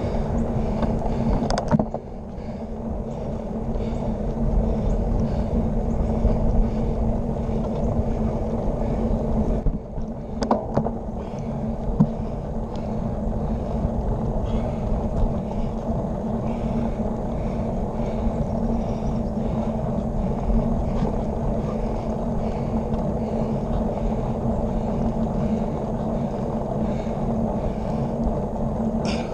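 Wind rushing over a handlebar-mounted camera's microphone on a moving road bike, over a steady hum of tyres rolling on asphalt. A few sharp clicks and rattles from the bike break through, near the start and around ten to twelve seconds in.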